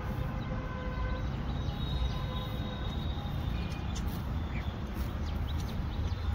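Steady low outdoor rumble of background noise, with a few faint, light clicks.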